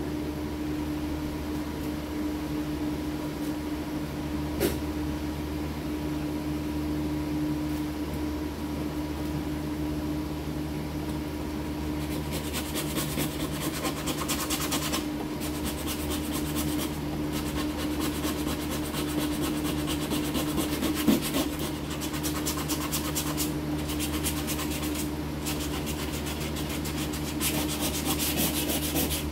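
Sanding on a car body panel, a steady scratchy rubbing over a continuous machine hum; the strokes get busier and scratchier a little before halfway through.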